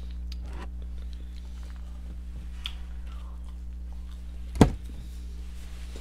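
Close-miked eating of a cheese and chicken taquito: faint chewing and mouth clicks over a steady low electrical hum, with one sharp, loud click about four and a half seconds in.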